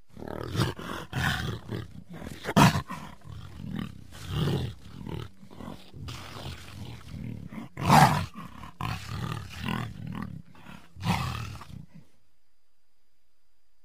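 Jaguar calling: a series of short, separate calls, the loudest about two and a half and eight seconds in, stopping about twelve seconds in.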